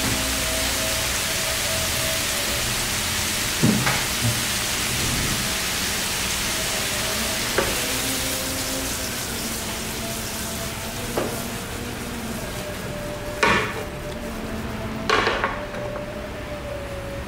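Bean sprouts and melting butter sizzling in a nonstick frying pan, with a steady hiss that thins toward the end. Half a dozen sharp knocks against the pan come as the sprouts are stirred, the loudest two near the end.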